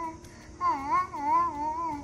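Baby monkey whining: a long wavering cry that rises and falls in pitch several times, starting about half a second in.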